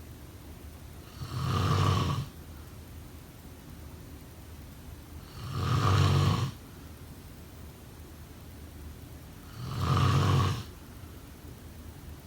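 A person snoring: three snores about four seconds apart, each lasting about a second, over a faint steady background hiss.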